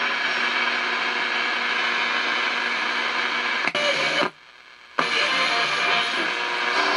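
Hallicrafters S-38D tube shortwave receiver playing loud static and off-air noise with a few steady whistle tones. A little over four seconds in, the sound cuts out for about half a second between clicks as the band switch is turned, then comes back.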